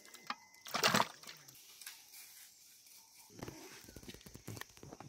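Water splashing and sloshing in a metal bowl as raw mutton is washed by hand, with one loud splash about a second in. Scattered soft knocks and rustles follow in the second half.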